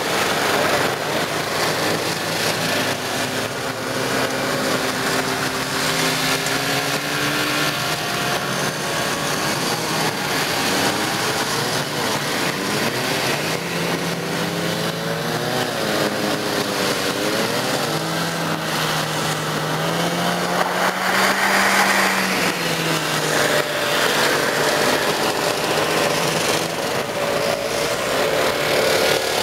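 Vintage two-stroke snowmobiles running past one after another, their engine pitch rising and falling as the riders work the throttle, loudest a little past the middle.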